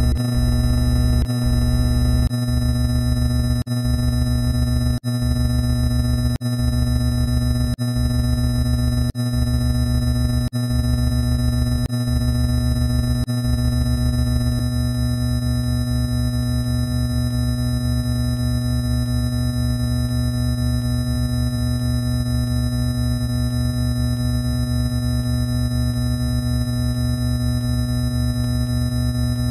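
A loud, harsh electronic drone: many steady synthesized tones stacked over noise. It breaks off briefly a little over a second apart through the first half, then runs unbroken.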